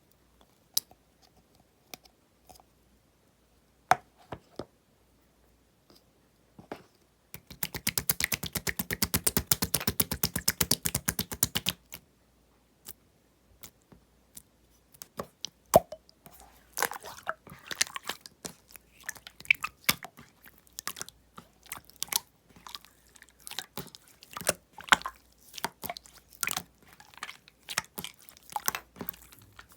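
Aloe soothing-gel slime being pressed and squeezed by hand, making sticky wet clicks and air-bubble pops. Scattered single clicks at first, a run of rapid, even clicking from about 7 to 12 seconds in, then dense irregular crackling from about 15 seconds on.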